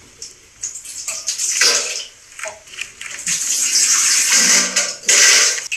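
Wet splashing, spluttering toilet noises, a comic sound effect of someone defecating, coming in irregular bursts that get longer and louder in the second half.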